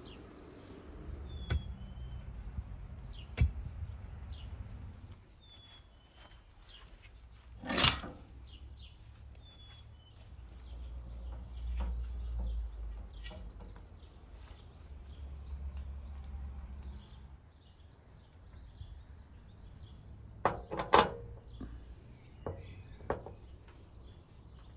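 Scattered sharp knocks and thuds from handling work, the loudest about eight seconds in and a quick double knock about twenty-one seconds in, over a low rumble, with faint bird chirps.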